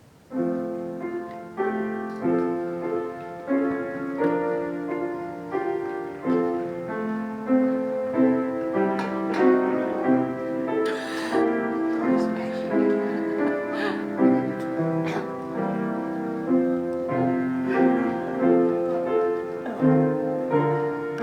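Piano music starting about half a second in: chords and a melody with each note struck and fading.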